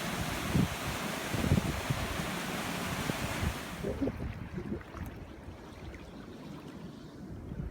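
Wash of surf on the shore with wind buffeting the microphone in low rumbling gusts. About halfway through the surf hiss drops away suddenly, leaving only the low wind rumble.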